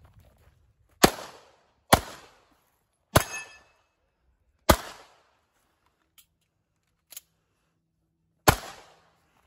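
Pistol fired five times at an uneven pace, each shot sharp with a short echo trailing off. Three shots come in about two seconds, a fourth about a second and a half later, and a last one near the end after a pause. Two faint clicks fall in that pause.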